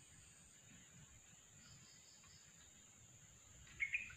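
Near silence with faint steady insect chirring in the surrounding forest, a thin high whine, and one brief soft noise near the end.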